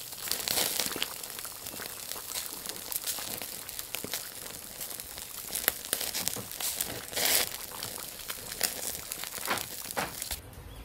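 Meat and vegetables sizzling on a wire grill over glowing charcoal: a steady crackling hiss broken by sharper pops of spitting fat, the loudest a little past halfway.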